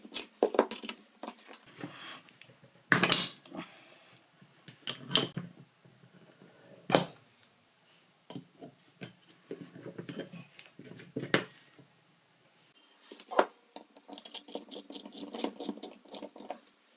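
Steel open-ended spanners clinking and knocking against a pair of nuts locked together on a threaded steel stud as the stud is unscrewed. A few sharper metal knocks come at about three, five and seven seconds in, and lighter clicking near the end as the new stud is threaded in by hand.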